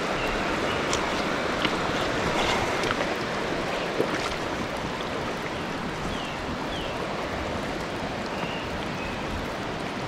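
Steady rush of a mountain stream flowing over stones, with a few faint high chirps and two sharp clicks, the louder of them about four seconds in.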